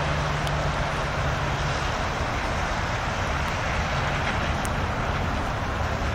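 Steady rumble and hiss of distant vehicles on a wet day, with a low hum that fades out about two seconds in.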